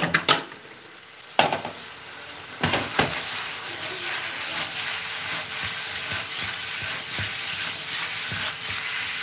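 Pineapple chunks frying in butter and sugar in a pan on high heat, sizzling steadily as they start to caramelize. A few knocks come in the first second and a half, and the sizzle comes in loudly about two and a half seconds in.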